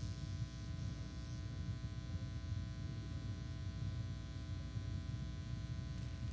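Steady electrical mains hum and buzz, a set of unchanging tones over a low rumble.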